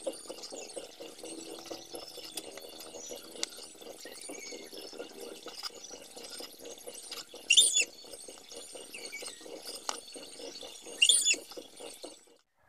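Cleaver slicing boiled sea cucumber on a plastic cutting board, sped up: a dense run of quick taps and clicks, with two short, loud, high-pitched squeaks, about seven and eleven seconds in.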